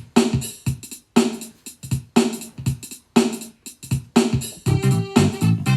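Outro music: an electronic drum beat with a strong hit about once a second and lighter hits between, joined by a bass line near the end.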